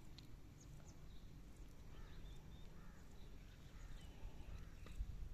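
Quiet outdoor ambience: faint, scattered bird chirps over a low, steady rumble, with a light click about five seconds in.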